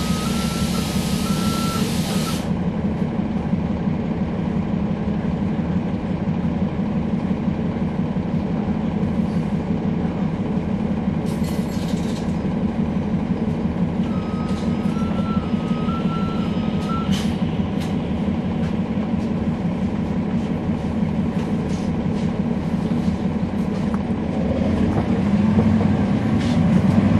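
Inside the rear of a 2011 NABI 40-SFW transit bus: the Cummins ISL9 diesel and ZF Ecolife automatic transmission running steadily, with the transmission making most of the noise. A long air hiss cuts off about two seconds in, and an alternating two-tone electronic beep sounds at the start and again about halfway through. The drivetrain grows louder near the end.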